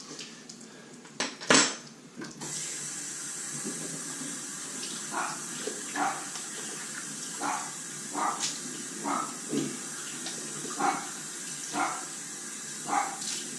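Bathroom tap running into a sink, turned on about two seconds in, with short sounds about once a second over the steady flow.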